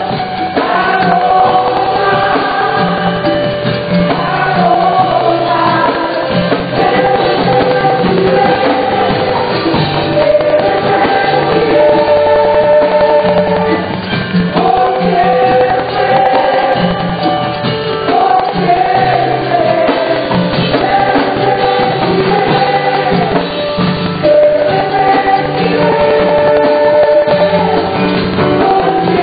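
Live gospel worship music: a group of voices singing long held notes over a band with keyboard and drums.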